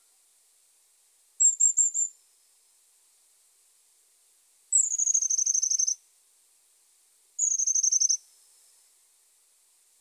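Long-tailed tits calling: a quick run of four very thin, high notes, then two rapid high trills, each about a second long and sliding slightly down in pitch.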